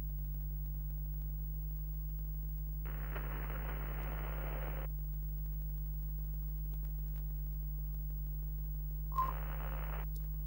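A low, steady electrical hum, interrupted twice by bursts of hiss: one lasting about two seconds a few seconds in, and a shorter one near the end that starts with a click.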